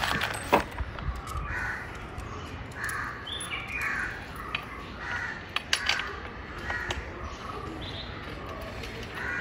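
Birds calling over and over, short rough calls about once a second, with a few sharp clicks, the loudest about half a second in.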